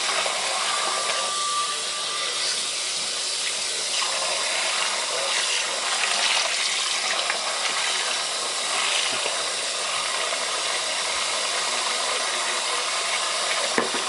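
Tap water running hard into a sink, a steady hiss of water splashing over a wig being washed.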